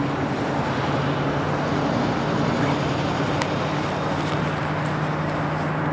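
Steady noise of heavy road traffic, with a low, even engine hum under it.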